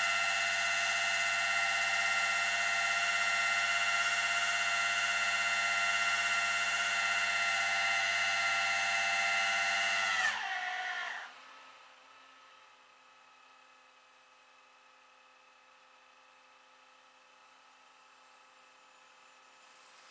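Flatbed tow truck's winch whining steadily as it pulls the car up the bed, then winding down in pitch and stopping about ten seconds in. A faint steady hum remains after it.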